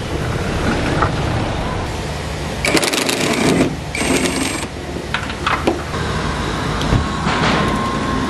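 Cordless impact driver on a long socket extension hammering at the strut-mount nuts: two short bursts of rapid rattling about three and four seconds in, the second with the tool's motor whine, followed by a few sharp metal clinks of the socket and tools.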